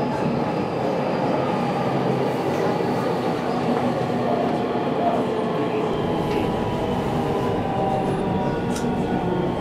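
Electric local train running on the line, heard from inside the front car: a steady rumble of wheels and running gear with faint steady whining tones, one of which falls slightly in pitch near the end.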